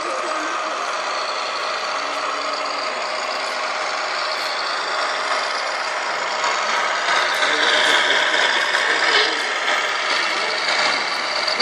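Diesel truck engine sound played through the small loudspeaker of a radio-controlled Scania R500 model truck's sound module, running steadily and getting louder and brighter for a few seconds past the middle as the model drives off.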